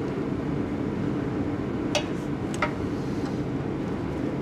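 Two short, sharp clicks about half a second apart, a couple of seconds in: a click-type torque wrench breaking over as a fitting on the oil filter housing reaches its inch-pound setting. A steady low hum runs underneath.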